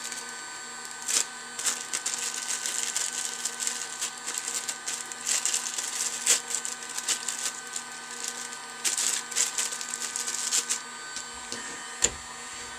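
Handheld hot air gun's fan motor running steadily with a humming whine, heating at full power. Over it come irregular bursts of crinkling and clicking from hands handling small plastic and wire parts, and a knock near the end as the gun is set onto a bent paper clip stand.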